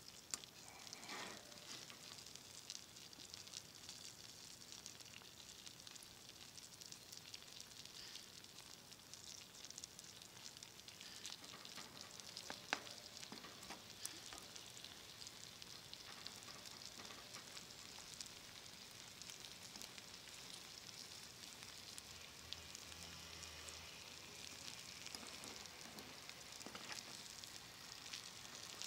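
Steak, onions and beans sizzling faintly in a black pan over a wood fire, with a steady crackling hiss and now and then a sharp click of a metal spoon against the pan.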